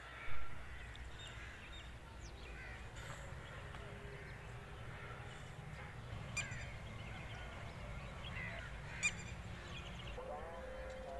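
Birds chirping over a low steady rumble, with a sharp knock just after the start and two fainter clicks later. Near the end a distant train horn starts up, rising briefly in pitch and then holding one steady note.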